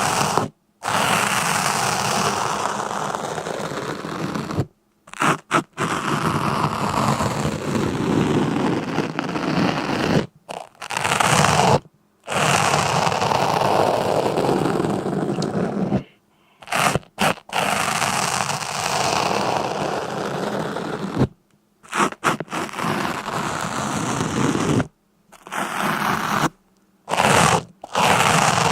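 Scraping, crunching noise in stretches of a few seconds, broken several times by sudden short silences.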